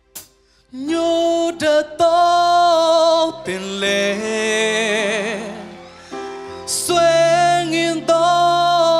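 A male singer starts singing a Burmese song with a live band behind him, just under a second in, after a single click. He holds long notes with vibrato, and his pitch slides down near the end.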